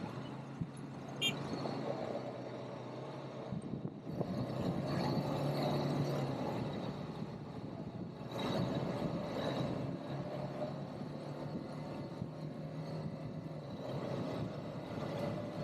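ATV engine running during an off-road ride, its pitch shifting slightly up and down, getting louder about four seconds in.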